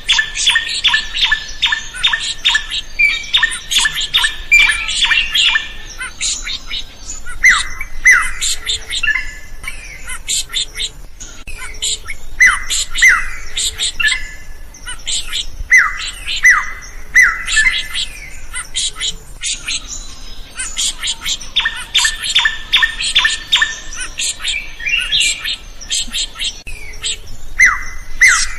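Drongo (srigunting) singing without pause. Runs of rapid, harsh stuttering notes alternate with repeated sharp down-slurred whistles, some of the whistles coming in pairs.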